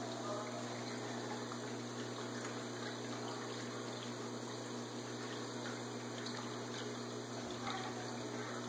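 Water from the filter outlet of a shallow aquarium tank falling into the water in a steady trickling splash, over a constant low hum.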